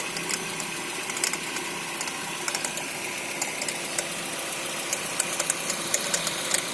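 Renault Fluence engine idling with irregular sharp clicks over its steady running, a "barulho de estalo" (snapping noise). A mechanic suspects it comes from the accessory belt tensioner, which is vibrating a lot.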